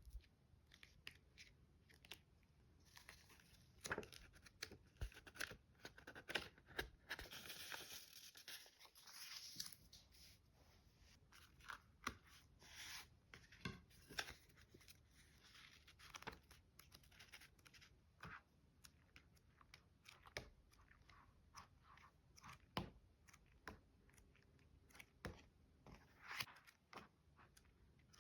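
Quiet handling of paper and plastic stationery packaging: scattered light taps, clicks and crinkles, with a longer rustle about seven seconds in.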